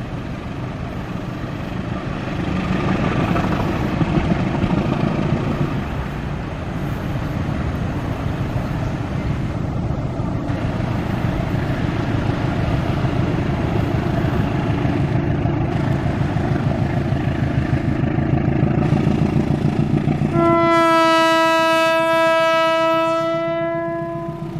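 Rumble of an approaching train with its CC201 diesel-electric locomotive, then near the end one long, steady blast of the locomotive's horn lasting about three and a half seconds, a warning at the level crossing.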